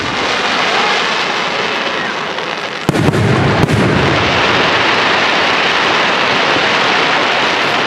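Aerial firework shells bursting overhead: a dense, steady hiss throughout, with two sharp bangs about three seconds in, followed by a deep boom.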